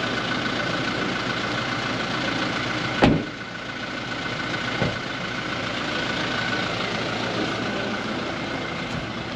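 Toyota Innova idling, its side door slammed shut about three seconds in, with a lighter knock shortly after; the engine keeps running steadily as the car pulls away.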